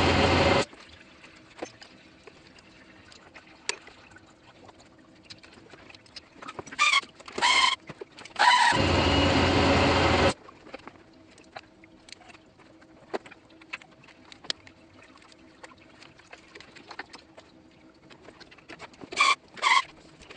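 Hand-held power tool unbolting parts in a car's engine bay: it runs in two bursts of about a second and a half, one at the very start and one about nine seconds in, with a few short whirs around seven seconds and near the end. Between the bursts there are light clicks and clinks of tools and parts.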